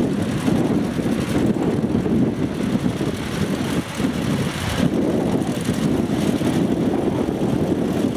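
Small walk-behind two-wheel tractor (motoculteur) engine running steadily, with a brief dip in level about four seconds in.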